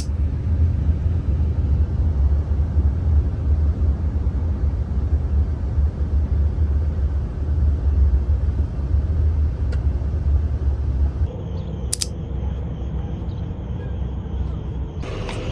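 Continuous low rumble with a noisy hiss, like a road vehicle in motion; the sound shifts and gets thinner about eleven seconds in.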